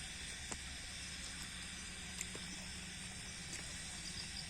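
Faint outdoor evening ambience: crickets chirping steadily over a low hiss, with a few faint clicks.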